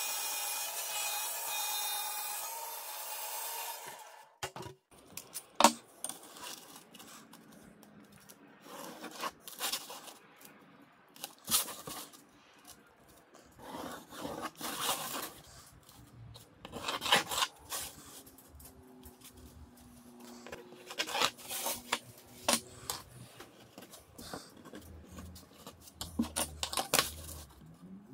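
A band saw running and cutting through plywood, a steady saw noise that cuts off about four seconds in. After that come scattered pencil strokes scratching along a steel ruler on the plywood disc, with light clicks and knocks as the ruler and pencil are moved and set down.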